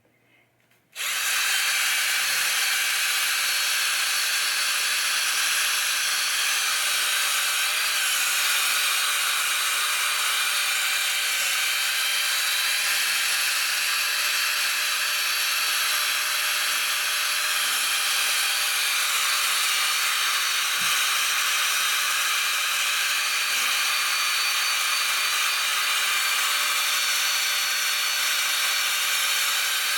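Electric machine polisher with a foam pad, running steadily as it polishes a pinball playfield with Novus plastic polish: a steady whine that starts about a second in and stops near the end.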